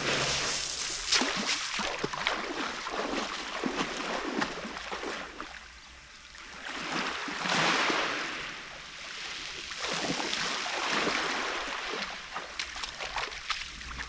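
Sea waves washing onto the shore, the surf noise swelling and fading, with a lull about six seconds in and the loudest wash around eight seconds in.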